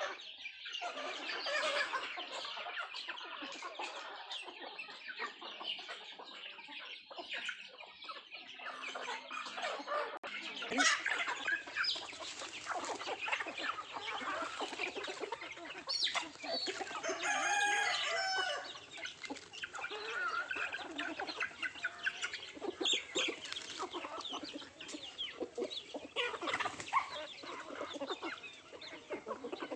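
Country chickens clucking and pecking at their feed, a busy run of short clucks and taps, with a rooster crowing once just past the middle.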